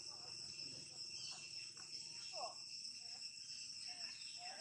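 Steady high-pitched insect chorus drones throughout, with a few faint, short gliding calls over it, one falling call about halfway through.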